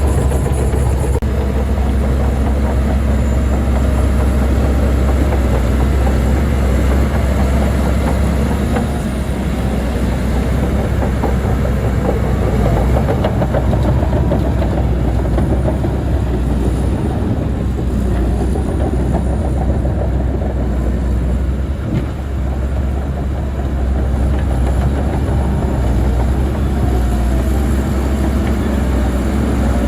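Heavy diesel earth-moving machinery running steadily: a deep engine rumble with constant clatter over it, easing briefly about two-thirds of the way through.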